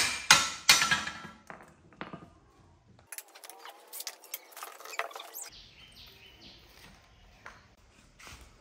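Hammer blows on the steel engine mounting of an old motorcycle: three sharp ringing strikes about a third of a second apart, then faint metallic clinks and handling noises as parts are worked loose.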